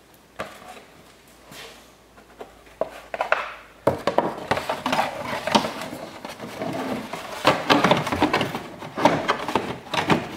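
Plastic wheel-well splash shield being handled and pushed into place against a car's body: rustling, scraping and many small knocks of plastic. A few faint clicks come first, then the clatter starts suddenly about four seconds in and keeps going.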